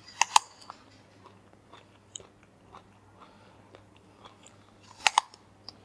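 A person biting into and chewing food: a couple of sharp crunchy clicks near the start and again about five seconds in, with faint chewing between.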